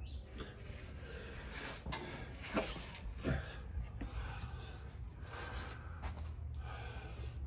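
Scattered rustling and a few light knocks from someone moving about and handling things, over a low steady hum.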